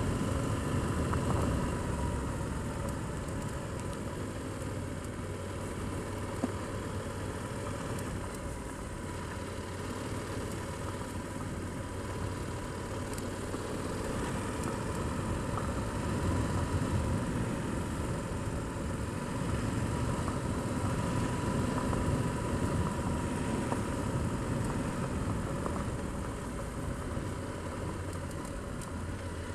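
Motorcycle engine running steadily at low speed while riding a gravel track, with a steady rushing noise from the tyres and air over it.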